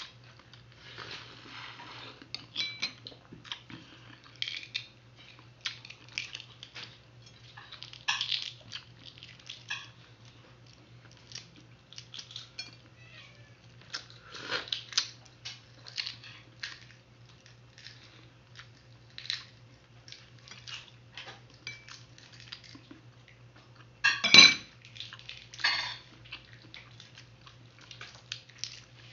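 Balut eggshell being cracked and peeled by hand, in many small crackles and clicks as shell pieces drop onto a ceramic plate, with one sharper knock near the end.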